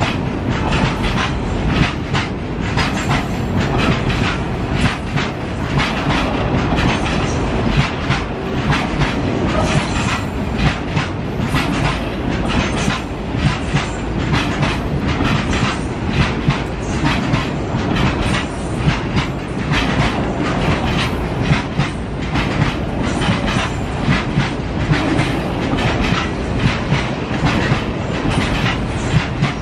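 Freight train of fully loaded petroleum-gas tank wagons running on the track: a steady rumble with rapid, uneven clacks of the wheels over rail joints.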